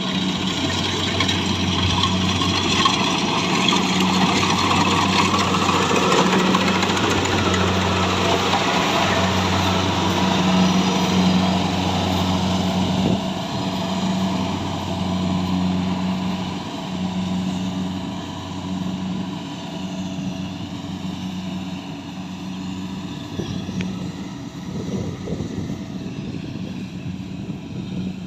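Engine of a rice harvesting machine running steadily with a low hum over mechanical noise, louder in the first half and slowly fading through the second half.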